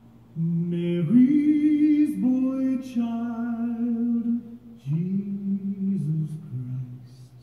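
A man singing a slow song in long, held notes with vibrato, in two phrases with a short breath between them.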